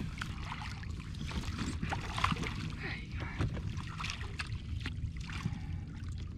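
Water splashing and sloshing at the side of an inflatable boat as a hooked conger eel is drawn into a landing net, over a steady low rumble.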